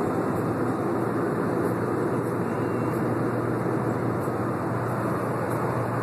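Steady road and engine noise inside the cabin of a moving Volkswagen Gol, an even rumble with no changes.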